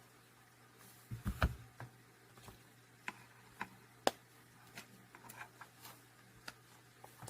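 A Victorinox Swiss Army multitool being handled: a few soft thumps about a second in, then scattered sharp, light clicks and small knocks.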